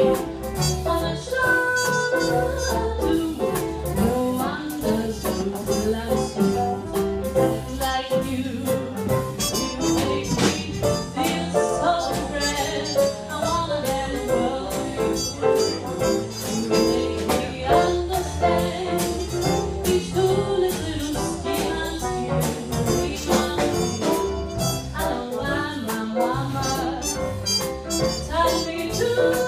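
A woman singing a song through a microphone, backed by a small live band with a saxophone over a steady beat.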